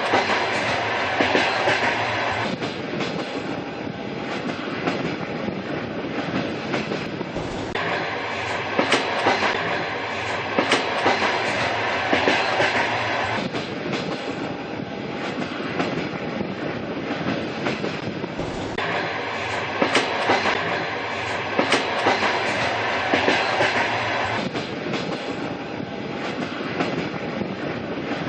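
Train running along the track: a steady rumble and hiss, with the clickety-clack of the wheels striking the rail joints. The hiss grows louder and softer every few seconds.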